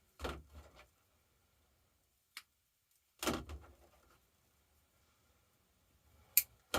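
Handling noises: two brief rustles, one just after the start and a louder one about three seconds in, and a few sharp clicks, two of them close together near the end.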